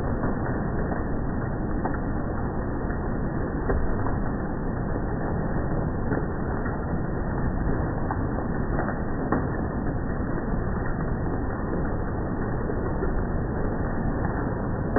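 Heavy hail and rain coming down, heard slowed down in slow motion: a dense, steady rushing noise with scattered sharp hits of individual hailstones.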